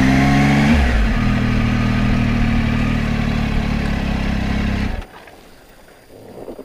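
Triumph Tiger 800's three-cylinder engine running at low speed, its pitch dropping about a second in and then holding steady. It cuts off suddenly about five seconds in as the engine is switched off.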